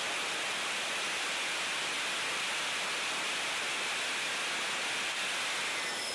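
General Electric F101 turbofan engine running on a test-cell stand, a steady rushing jet noise strongest in the upper middle range.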